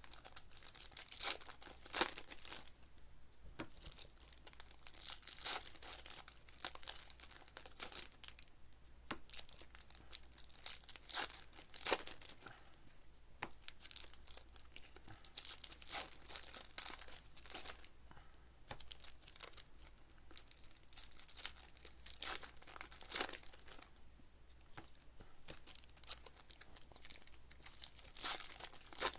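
Trading-card pack wrappers crinkling and tearing as packs are ripped open and handled, in irregular crackles with short pauses.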